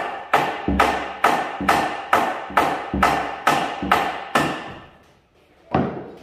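Hammer blows on a wooden brace, pinning the timber in: a steady run of about a dozen strikes, just over two a second, each with a short ring, then a pause and one more strike near the end.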